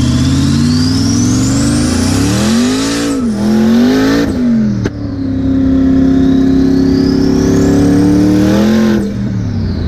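Twin-turbocharged Corvette V8 pulling hard from inside the open cabin, with the turbos' high whistle climbing as it accelerates. The revs dip and rise through shifts about three to five seconds in, then a second pull climbs with the whistle rising again before the driver lets off near the end.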